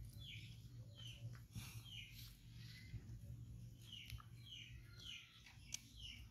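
Faint bird chirping: a bird repeats short falling chirps, roughly two a second, pausing midway, over a low steady hum. A single sharp click comes near the end.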